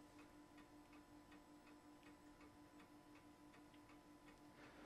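Near silence: faint room tone with a faint, rapid pulsing hum and a few faint ticks.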